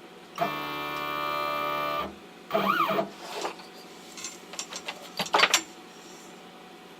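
CNC router's Z-axis stepper motor whining at a steady pitch as it lowers the bit onto the touch-off plate to set the Z height, cutting off abruptly about two seconds in. A short move follows whose whine rises and falls in pitch, then a few scattered clicks.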